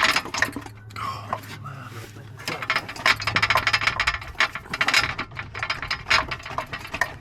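Rapid mechanical ratcheting clicks in runs, loudest through the second half, over a low steady hum.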